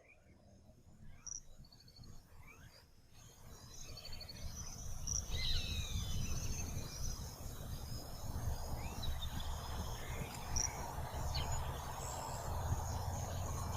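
Quiet rural outdoor ambience: small birds chirping and trilling, with insects and a low steady rumble underneath. It starts almost silent and fades in over the first few seconds.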